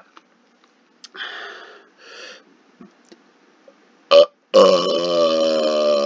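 A man's deliberate, long burp on command after swallowing water. Two short breathy sounds and a sharp click come first; then, about four and a half seconds in, a loud, steady belch with a clear pitch starts and holds.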